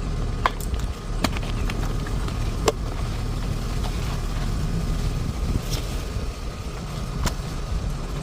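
Baby clothes being hand-washed: wet, soapy fabric scrubbed and worked, with scattered sharp clicks and knocks over a steady low rumble.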